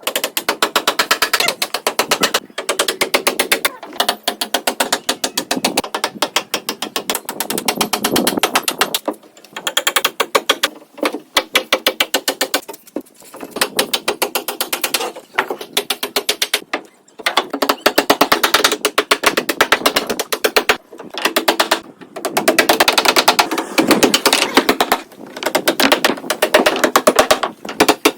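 Background music with a fast, clicking percussive beat, coming in phrases broken by short gaps.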